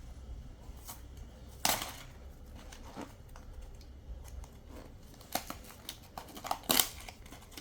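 Blind-box toy packaging being opened by hand: one loud sharp rip a couple of seconds in, then a run of rips and crinkles near the end.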